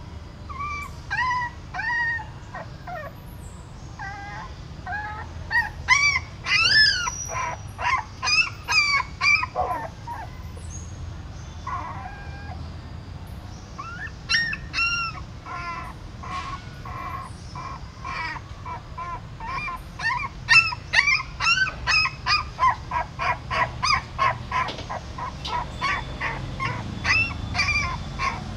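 Newborn puppies crying: short high-pitched cries in scattered clusters, turning into a quick run of cries in the last third.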